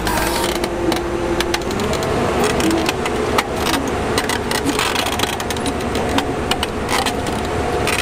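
Heavy-equipment diesel engine running, its pitch stepping up about two seconds in as it revs, with scattered knocks and clanks over it.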